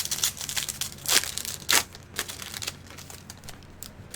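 Foil trading-card pack wrapper crinkling and tearing as it is opened: a quick run of sharp rustles, densest in the first couple of seconds, then a few lighter crinkles.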